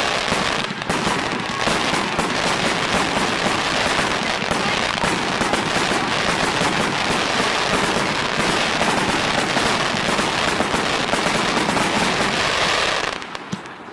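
Fireworks going off: a dense, continuous crackle of many rapid pops, cutting off suddenly about a second before the end.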